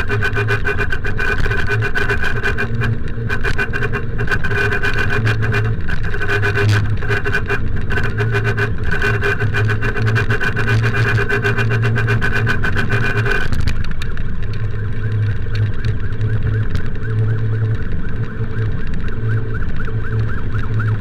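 Motorcycle running at road speed with wind noise on the mic, and a vehicle horn sounding almost continuously, with short breaks, for about the first two-thirds before it stops.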